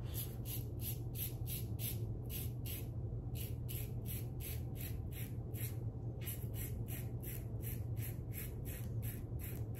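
Carbon CX safety razor with a fresh Nacet blade scraping through a day and a half of stubble in short, quick strokes, about three a second, each a crisp rasp. A steady low hum runs underneath.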